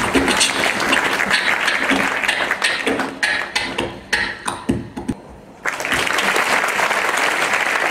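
Beatboxing into a handheld microphone over a PA, a rapid run of drum-like strokes that stops about five seconds in. Then the audience applauds.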